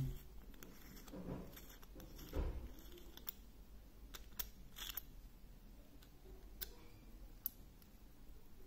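Faint, scattered small metallic clicks and rubs as the screw-down caseback of a vintage Seiko 6139 chronograph is turned off by hand, with a couple of soft handling knocks in the first few seconds.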